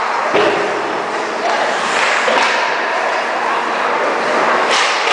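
Ice hockey play heard close at the boards: skate blades scraping on the ice and players' voices calling out, with sharp knocks of sticks or the puck, the clearest about half a second in and another near the end.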